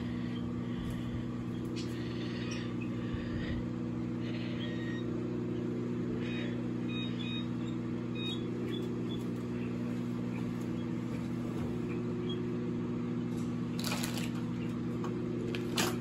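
Microwave oven running: a steady low hum.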